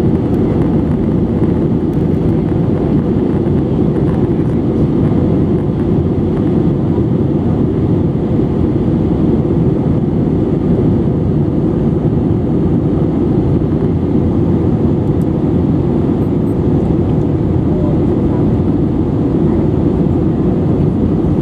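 Airbus A320-200 cabin noise in flight, heard from a window seat over the wing: the steady low rush of the jet engines and the airflow, even and unchanging.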